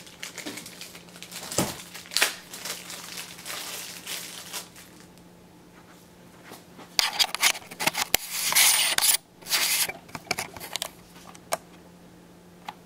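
Rustling and crinkling of packaging and hands handling camera accessories, with scattered small clicks and louder bursts of crinkling about seven to ten seconds in.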